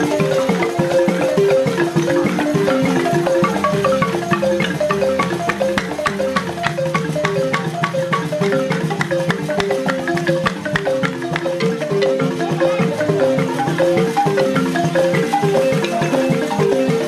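Fast xylophone-type music: quick runs of short struck notes repeating in a cycle over a steady lower part, at an even loudness throughout.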